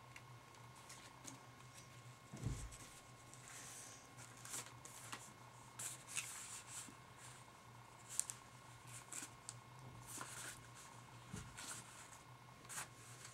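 Faint rustling and crinkling of a rolled-paper toy shotgun being handled, with a couple of soft thumps, over a steady low hum.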